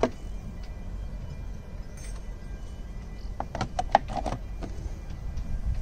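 Hard plastic hinged cover of a Volvo Penta engine control panel being handled: a sharp click at the start, then a quick cluster of light clicks and knocks about three and a half to four and a half seconds in as it is shut, over a low steady rumble.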